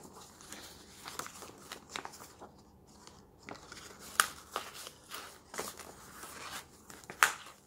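Paper notebook inserts rustling and flapping as they are handled and fitted into a leather traveler's-notebook cover, with scattered soft clicks and two sharp clicks, about four and seven seconds in.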